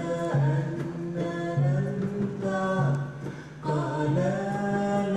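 A man and a woman singing unaccompanied in Arabic, in long held notes.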